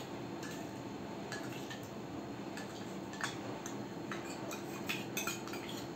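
Steel spoon clinking and scraping lightly against a small stainless steel bowl as cornflour and water are stirred, with scattered small clinks over a faint steady background hum.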